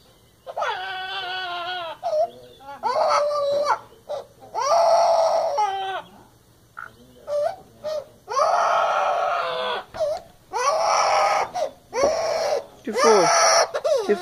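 Amazon parrot giving a run of wailing, crying calls that mimic a crying child. Several long cries of about a second and a half alternate with short ones.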